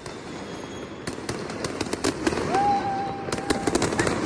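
Aerial fireworks going off: clusters of quick crackling pops, with a single held tone for about a second midway through.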